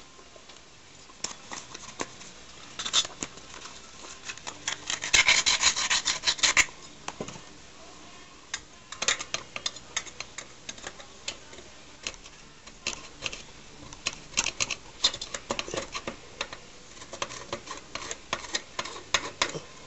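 Sandpaper rubbed by hand against the exhaust-port flange of a 66cc bicycle engine's cylinder in short, irregular scraping strokes, with a louder run of quick strokes about five seconds in. The flange is being smoothed so that the new exhaust gasket seals.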